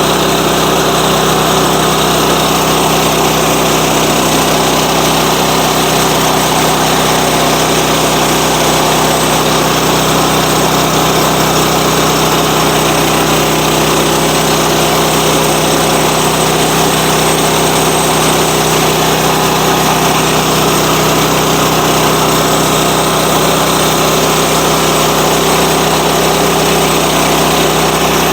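Sawmill's engine running steadily at an even pitch, with no change in speed.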